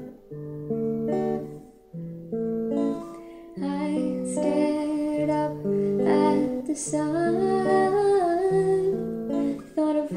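Clean electric guitar playing picked arpeggio patterns. A woman's singing voice comes in about three and a half seconds in and carries on over the guitar.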